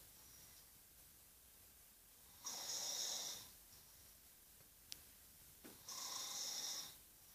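Loud snoring: two snores about three and a half seconds apart, each lasting about a second, with a brief click between them.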